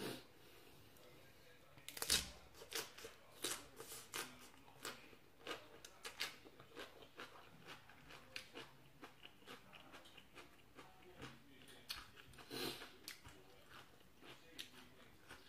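Crunchy chewing of raw fresh vegetables: a loud bite about two seconds in, then a steady run of crisp crunches, about two or three a second.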